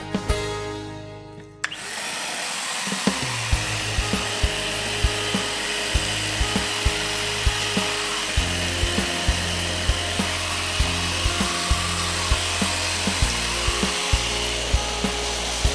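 Multipro vacuum cleaner switched on about two seconds in, then running steadily with a high hiss, over background music with a steady beat.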